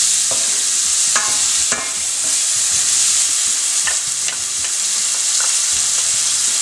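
Chopped onion sizzling in hot oil in a non-stick frying pan as it starts to fry. A wooden spatula stirs it, scraping and knocking against the pan a few times.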